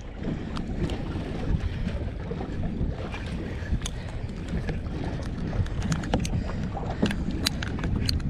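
Wind buffeting the microphone out on open water, a steady low rumbling noise, with a few light sharp clicks scattered through the second half.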